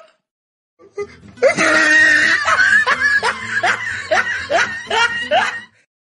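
A person laughing hard, a long run of repeated laughs that starts about a second in and stops shortly before the end.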